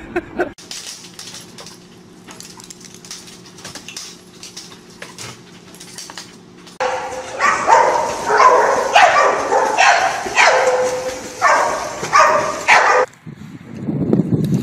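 A dog barking and yelping excitedly over splashing water, about a dozen short calls falling in pitch, starting about seven seconds in and cutting off suddenly near the end. Before them is a quieter stretch of scattered clicks over a steady low hum.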